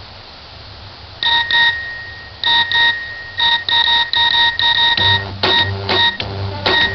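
Electronic ringtone beeps in quick pairs, starting about a second in and coming more often. About five seconds in, a bass line and lower melody notes join, turning it into a dance tune.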